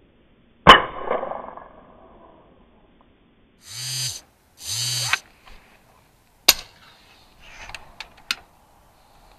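A single shot from a moderated Baikal .410 Hushpower shotgun: a sudden sharp report with a short ringing tail about a second in. Two brief noisy bursts follow a few seconds later, then a sharp click and a few lighter clicks as the gun's action is worked.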